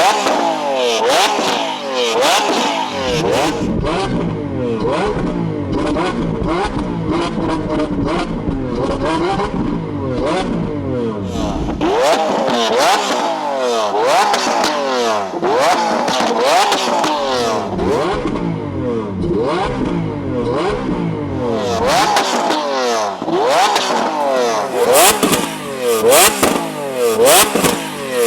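Lamborghini Aventador V12 being revved hard over and over while standing still, each rev climbing quickly and dropping back, with sharp exhaust pops and crackles from the flame-throwing exhaust. The pops come thicker near the end.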